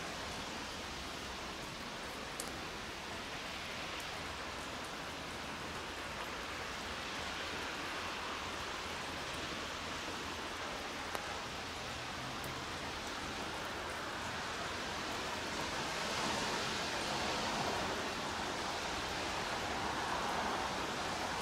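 Steady hiss of light rain, with an electric train's running noise swelling over the last few seconds as it rolls slowly closer through the yard.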